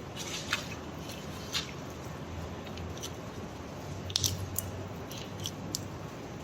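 A few short clicks and scrapes of an intramedullary pin and surgical instruments being worked through a calf's tibia, over a low steady hum.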